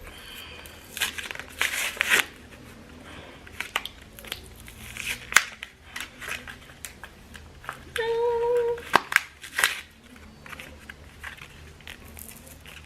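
Plastic and cardboard packaging of a small flashlight being worked open by hand: crinkling, crackling and tearing, with many short sharp clicks. About eight seconds in there is one short steady tone.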